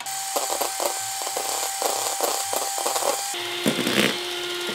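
Electric hand mixer whirring as its beaters whip egg whites in a plastic bowl, with the beaters knocking and scraping irregularly against the bowl. Its whine drops to a lower pitch about three and a half seconds in.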